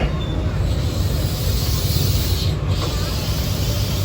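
D19E diesel-electric locomotive engine running with a steady low rumble; a hiss swells and fades about halfway through.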